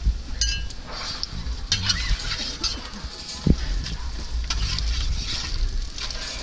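Roti frying on a flat metal griddle, sizzling steadily, with a metal spatula scraping and clicking against the pan several times as the roti are folded and turned. A low rumble runs underneath.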